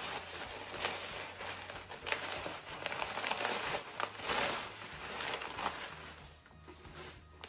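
Crinkly packaging rustling and crackling as a wrapped bag is handled and opened by hand, dying down about six seconds in.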